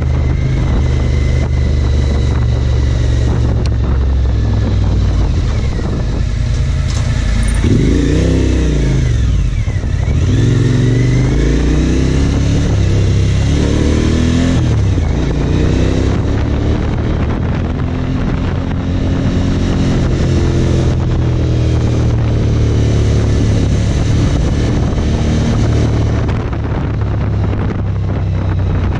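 Suzuki DL1000 V-Strom's V-twin engine running under way, heard from the rider's seat. Its pitch rises and falls several times in the first half as the throttle is opened and closed through the bends, then holds steadier.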